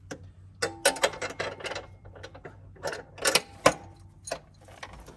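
Hand ratchet wrench clicking in short irregular bursts as a bolt is turned, with a few sharp metallic clicks and clinks.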